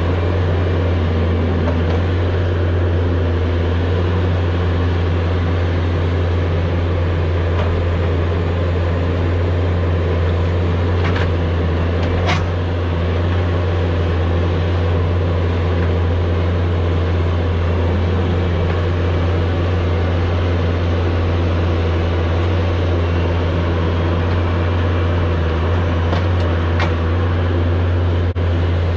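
Bobcat S570 skid steer's diesel engine running steadily under work, with a few sharp knocks, about halfway through and again near the end.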